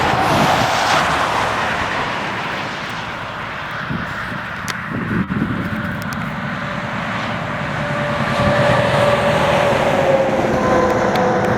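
Motor vehicle noise on a highway: steady tyre and engine rumble, with a faint hum coming in over the last few seconds and sinking slightly in pitch.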